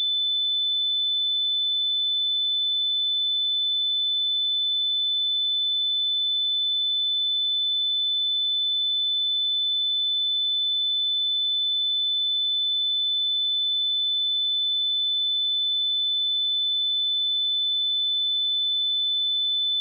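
A pure 3511 Hz sine-wave test tone, a single steady high-pitched tone held at constant level.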